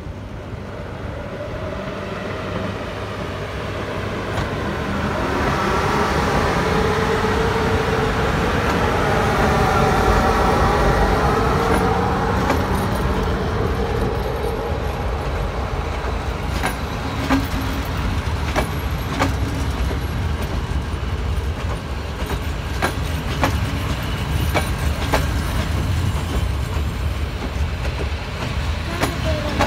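CFR Class 40 electric locomotive hauling a passenger train of single- and double-deck coaches slowly past the platform, with a steady rumble of the train. For several seconds in the first half a wavering whine of several pitches rises above the rumble. From about halfway on, the wheels click sharply over the rail joints as the coaches roll by.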